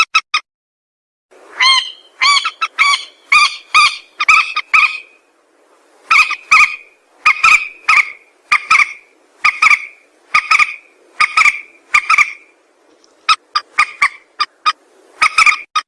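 Mandar sawah, a rail, calling: a long series of short, repeated notes, about two a second. Near the end they give way to a quicker run of shorter notes.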